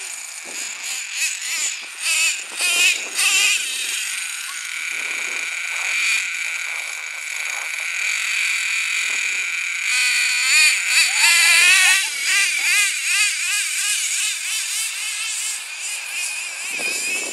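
HPI F4.6 nitro engine in a Traxxas T-Maxx RC monster truck running with a high-pitched engine note that rises and falls again and again as the throttle is worked. The revs swing up and down fastest about ten to thirteen seconds in.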